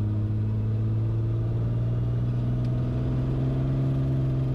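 Continental IO-550-B six-cylinder engine and propeller of a Bonanza heard from inside the cockpit, a steady drone that rises in pitch over the first few seconds as takeoff power comes up.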